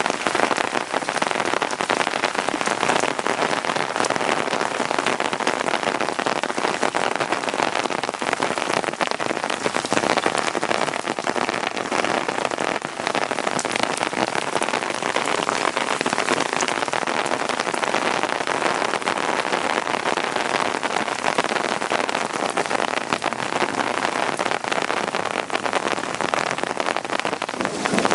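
Heavy storm rain falling steadily, a dense patter of countless drops hitting hard surfaces.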